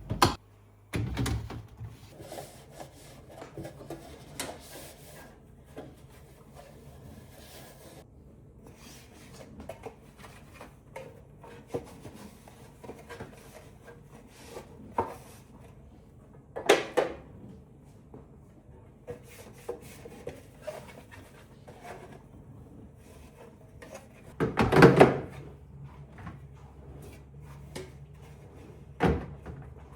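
Scattered knocks, taps and rubbing of objects being handled and set down on hard surfaces, with louder clatters near the start, a little past halfway and near the end.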